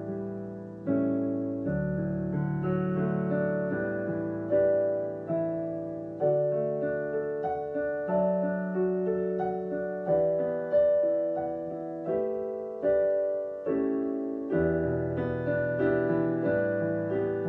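Solo Roland digital grand piano playing a slow, gentle melody over chords. A new chord or note is struck about once a second and fades away.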